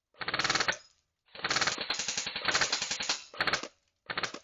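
Airsoft rifle firing full-auto bursts: a short burst, a long one of about two seconds, then two short bursts.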